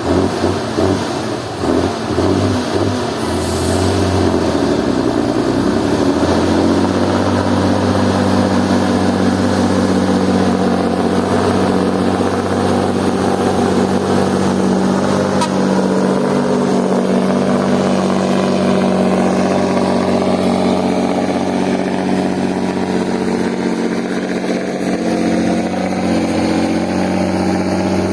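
Logging truck's diesel engine pulling unevenly for the first few seconds, with a brief hiss about three seconds in, then running at steady revs.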